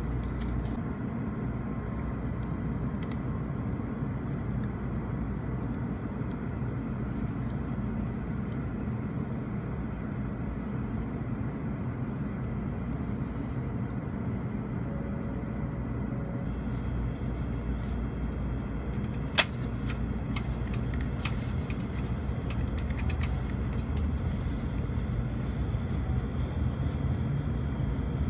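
Low, steady rumble of a Shinkansen train moving off from a station platform, building slightly in the second half. A single sharp click about nineteen seconds in.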